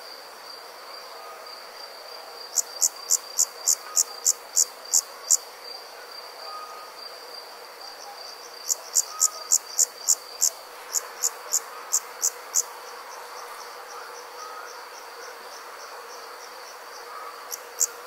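Night insects calling: a steady high trill runs underneath, while a nearer insect sings in bouts of sharp, loud chirps at about four a second. There are two such bouts, with a third starting near the end.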